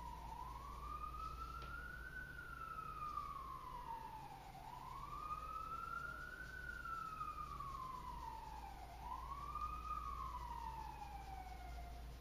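An emergency vehicle siren wailing faintly, its pitch rising and falling slowly three times.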